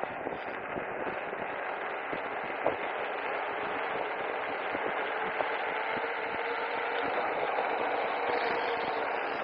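E-mountain bike riding along: a steady rush of wind and tyre noise with scattered small ticks, and a faint steady whine that comes in about four seconds in.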